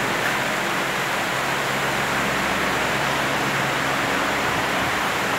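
Steady, even rushing noise with a faint low hum underneath, unchanging throughout, with no distinct hits or footsteps standing out.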